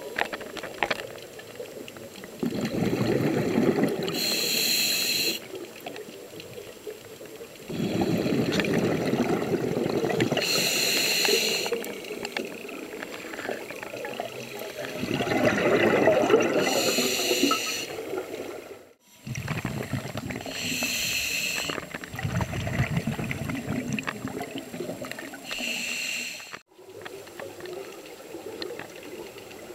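Scuba diver breathing through a regulator underwater: a high hiss on each breath drawn and a rumble of exhaled bubbles, repeating about every six seconds. The sound breaks off suddenly for a moment twice, near the middle and near the end.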